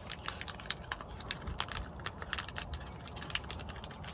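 Puppies and a dog scrabbling in a plastic dish on gravel: quick, irregular clicks and rattles of pebbles and plastic under paws and muzzles.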